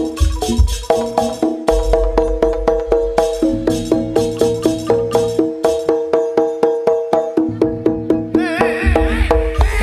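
Live Jaranan gamelan music: struck metallophones and drums playing a fast, steady, repeating pattern over a low drum beat, with a wavering high melody line coming in near the end.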